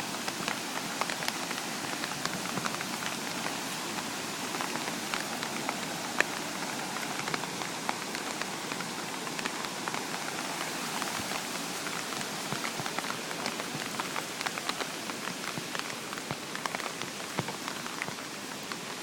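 Steady heavy rain falling, a constant hiss with many sharp drop ticks scattered through it.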